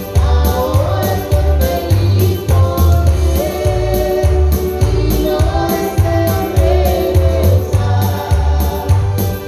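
Christian praise song sung by a duo: wavering sung melody over a steady beat of bass pulses about twice a second with ticking cymbals.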